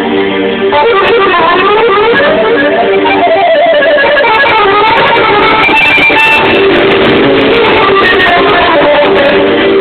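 Electric guitar playing fast runs of notes that climb and fall over held chords, in Roma kafana style.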